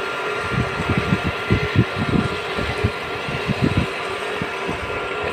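Electric irrigation water-pump motors running with a steady hum, with wind gusting and buffeting the microphone.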